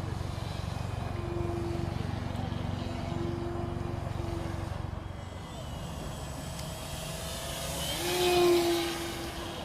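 Radio-controlled biplane's small engine droning in flight, its steady note coming and going. About eight seconds in it rises in pitch and swells to its loudest as the plane sweeps close.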